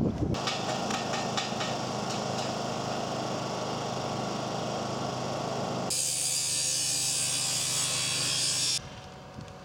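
A power tool running steadily. About six seconds in, a loud hiss joins it, and both cut off sharply about three seconds later.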